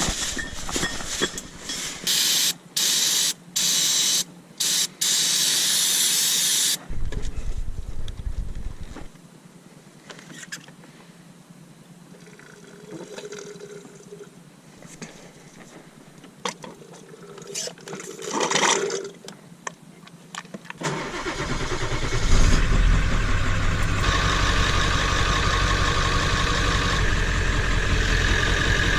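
Loud, broken hissing bursts at first, then about twenty seconds in the 1997 Ford F-250's 7.3L Power Stroke turbo-diesel V8 starts and runs steadily at idle, its first run with the newly replaced power steering pump.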